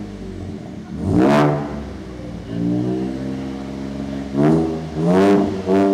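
Ford Ranger Raptor engine revving through a Tickford 3-inch stainless exhaust. It idles, gives a sharp blip about a second in, holds a steadier rev in the middle, then blips three more times in quick succession near the end.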